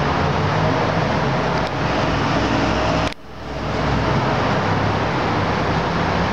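Steady city traffic noise, the even hum of cars on the streets below. About three seconds in, the sound cuts out suddenly and swells back over about a second.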